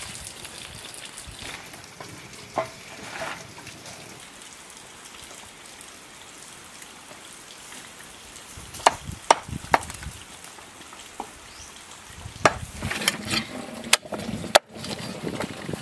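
Food sizzling while it cooks, a steady hiss broken by a few sharp clicks and knocks: three close together about nine seconds in, and a few more near the end.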